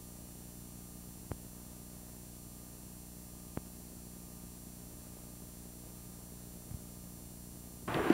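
Steady electrical mains hum over a blank stretch of camcorder tape between recordings, with two faint clicks. Near the end, louder noise from the next recording cuts in.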